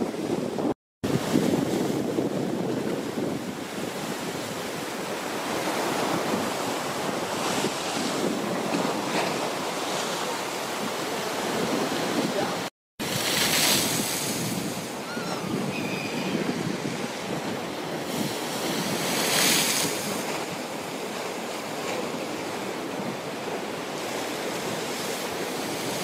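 Storm waves breaking and surging against concrete breakwaters, with wind buffeting the microphone. The sound swells louder about 14 and 20 seconds in and cuts out briefly twice, about a second in and about 13 seconds in.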